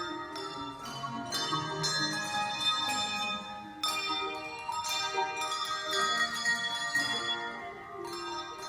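A team of English handbells ringing a tune in harmony: chords of tuned bells struck one after another, each note ringing on under the next.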